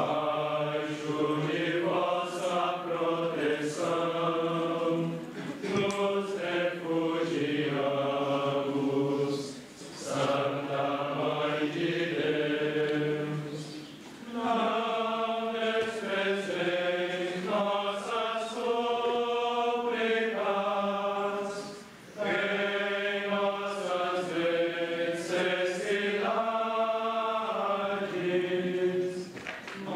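A group of voices singing a slow liturgical chant in long held phrases, with short breaths between phrases.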